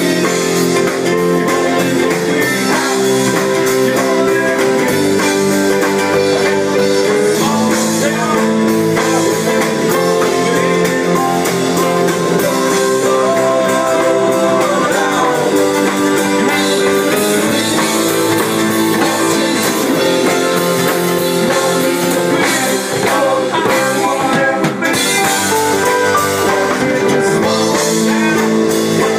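Live band playing loud amplified music with electric guitars, bass guitar and drum kit, steady with no breaks.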